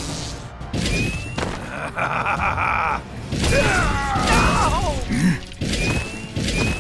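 Action background music with a steady beat and short rising chirps. Over it comes an electronic hum of Iron Man's hand repulsors charging, about two seconds in. Then, partway through, there is a stretch of wavering, sliding effect tones.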